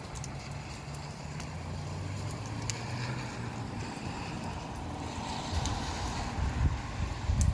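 Gusty outflow wind rushing and buffeting the microphone with a low rumble, swelling in stronger gusts near the end, with a few sharp ticks.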